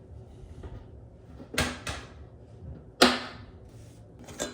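Snap ring being worked off a dryer drum support wheel's shaft with a small tool: three sharp metallic clicks about a second and a half apart, the middle one loudest.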